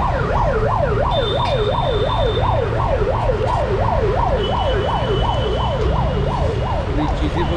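Emergency-vehicle siren in a fast up-and-down wail, about three sweeps a second, over the steady rumble of road traffic; it fades near the end.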